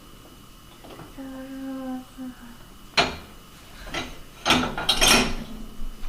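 Dishes and cutlery clattering: a sharp knock about three seconds in, another a second later, then a burst of clinking clatter near the end. Early on, a voice hums a short held note.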